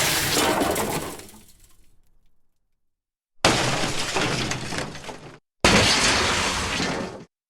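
Three crash sound effects of glass breaking and shattering. The first is already sounding and fades over about two seconds into scattered tinkling. The other two hit suddenly about three and a half and five and a half seconds in, and each cuts off abruptly after about two seconds.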